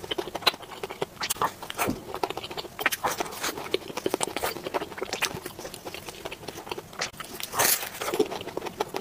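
Crisp, flaky pastry crackling as it is broken apart and handled in plastic-gloved hands, with a louder crunchy bite near the end, then chewing.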